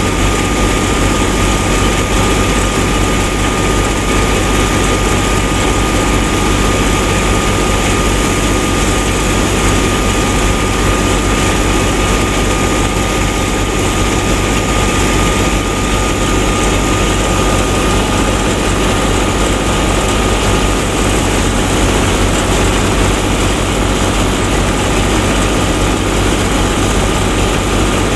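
Miniature model wheat thresher running steadily: a small motor and its belt-driven drum and fan whirring without a break, with a constant high tone over a low hum.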